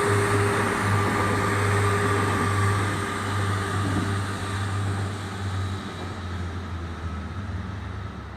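A train running past on the line, a steady rumble and low hum with a few faint higher tones, dying away over the last few seconds as it moves off.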